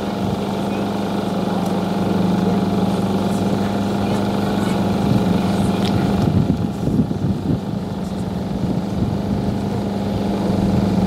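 A motor running with a steady, even hum; from about six seconds in the sound turns rougher and uneven.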